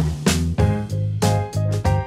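Instrumental music: a bass line under drum hits and stacked keyboard chords, with no vocals.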